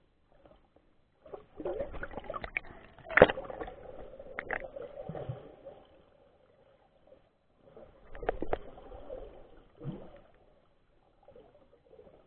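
Muffled underwater sloshing and bubbling through a waterproof camera housing as swimmers move in the water, in two stretches with sharp clicks, the loudest about three seconds in.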